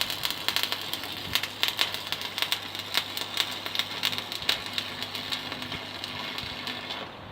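Stick (arc) welding: the electrode arc crackling and spitting continuously over a steady low hum, then cutting off abruptly near the end as the arc is broken. The welder is set a little too high, making a messy weld.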